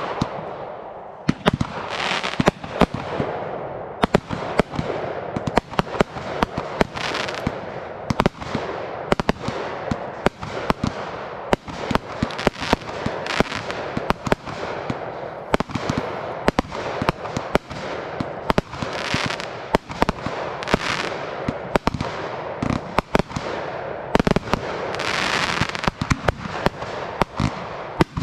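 Aerial fireworks display: a rapid, continuous barrage of sharp bangs from bursting shells, with hissing, crackling bursts filling the gaps every second or two.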